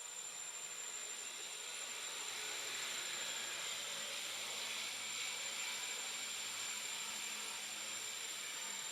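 Steady high insect trill over a hiss of background noise, with a faint low hum coming in about a third of the way through.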